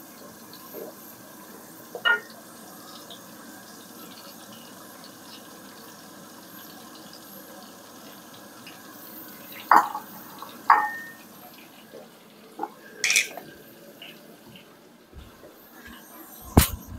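Garlic frying in mustard oil in a stainless-steel pan: a steady sizzle, with a wooden spoon knocking against the pan a handful of times as it is stirred, loudest a little after halfway.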